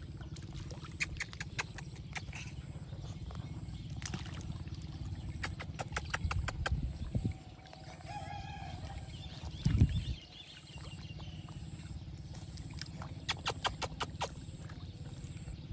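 Otters splashing and thrashing in shallow lake water: bursts of sharp splashes, with a heavier low splash about ten seconds in, over a steady low rumble. A short chirping call sounds a little past the middle.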